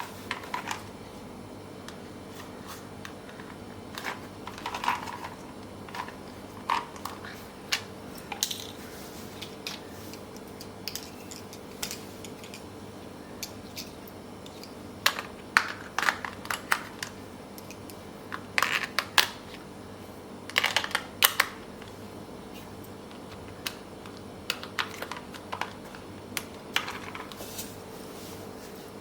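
Irregular clicks and light clattering of small objects being handled, in scattered clusters that are busiest in the middle, over a steady faint hum.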